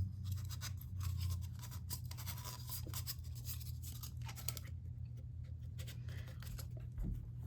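Light scratching, rubbing and small clicks from hands working on model rocket parts, over a steady low hum.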